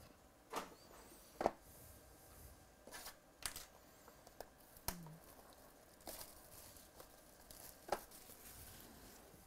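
Hands unwrapping a sealed cardboard box of trading cards: plastic wrap crinkling and tearing, with scattered clicks and taps of the cardboard being handled, the crinkling densest near the end.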